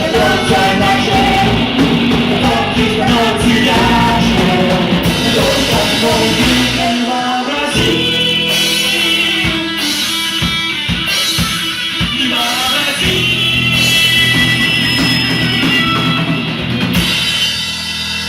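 Live rock band with electric guitars, bass and drum kit playing the closing section of a song. Dense playing gives way to held chords punctuated by separate drum hits, and a final accented hit near the end is left to ring out.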